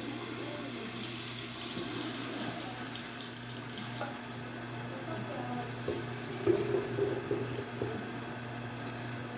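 Water running from a tap into a spray bottle to fill it. The flow comes on just as the sound starts, with a steady rush that softens a little after about three seconds.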